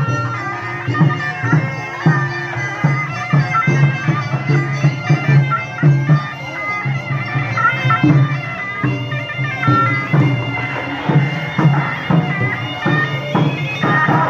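Khmer traditional procession music, loud and amplified: a reedy, bagpipe-like wind instrument playing a continuous melody over a steady drum beat.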